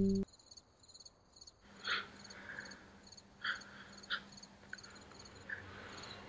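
Crickets chirping in an even, pulsing pattern, with a low hum joining in under them and a few short, sharper sounds about two, three and a half and four seconds in. A ringing guitar note cuts off just at the start.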